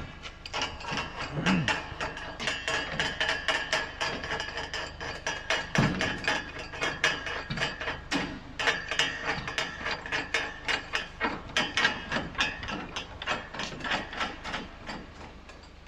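Ratchet wrench clicking rapidly and steadily as a stainless steel post is tightened at its threaded base into an aluminium floor.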